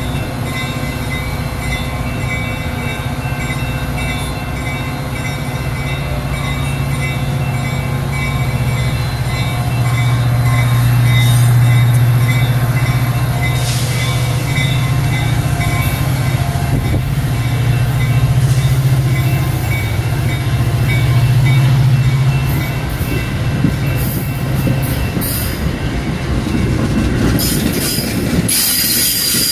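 Metra diesel commuter train at a station platform: a steady low engine hum with faint steady whines from the cars' equipment, giving way near the end to the louder rush of the moving train.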